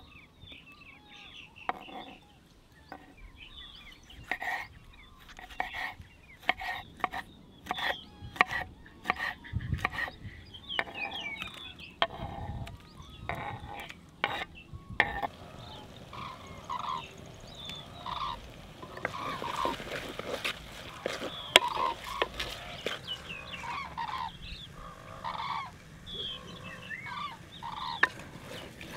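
Birds calling and chirping throughout, with a run of repeated short honking calls in the second half. Under them runs a series of sharp knocks and clicks.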